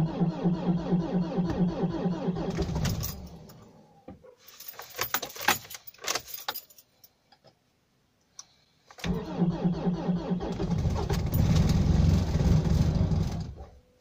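Mitsubishi L200 diesel being cranked by its starter in −27 °C cold without catching: a crank of about three and a half seconds, then clicks and keys jingling as the key is worked, then a second crank of about four and a half seconds that also fails to start it.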